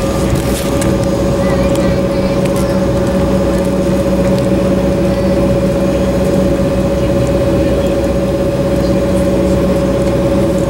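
Cabin noise inside an Embraer 190 taxiing on its two GE CF34-10E turbofans: a steady high whine over a dense low rumble.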